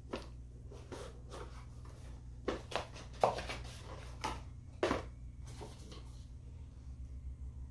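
Hands handling a boxed product: scattered taps, clicks and rustles of cardboard packaging, the loudest about three and five seconds in, over a low steady hum.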